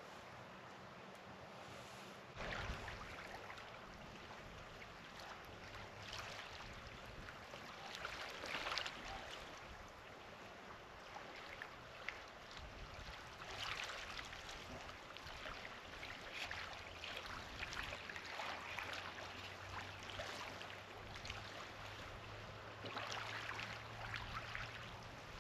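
Small waves lapping and splashing against shoreline rocks, swelling in soft surges every few seconds.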